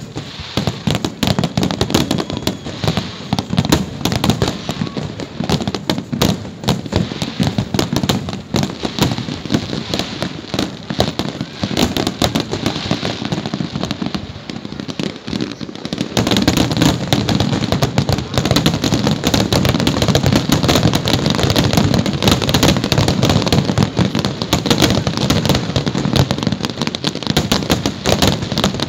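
Fireworks display firing a continuous rapid barrage of bangs and crackling, which grows louder and denser a little past halfway.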